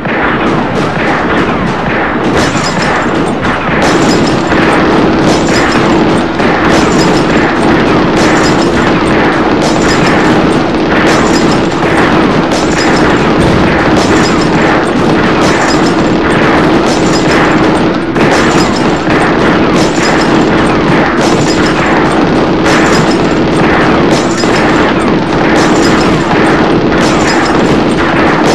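Battle sound effects: a dense din of musket gunfire and booming explosions, with sharp shots repeating about once a second. A steady low tone joins about four seconds in.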